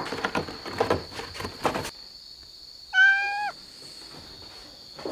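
Cat clawing at a corrugated cardboard scratcher box, a run of rough scratches that stops abruptly about two seconds in. A second later the cat gives one short meow.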